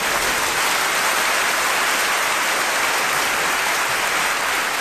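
Audience applauding steadily at the end of a live song recording.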